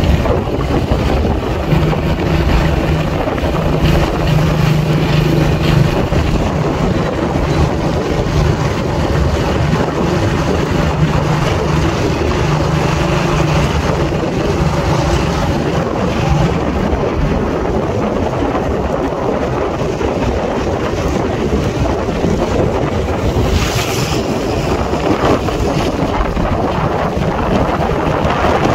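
Wind buffeting the microphone on a moving motorcycle, over the motorcycle's engine running as a steady low hum that drops away about halfway through, leaving mostly wind rush.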